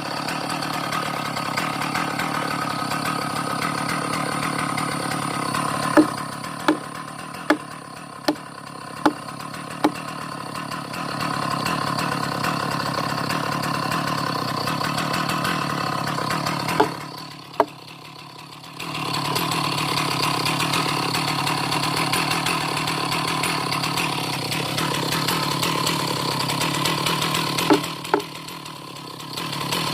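Chainsaw engine running at a steady speed, dropping back twice. About six seconds in comes a run of six sharp knocks, roughly one every second, with a few more single knocks later.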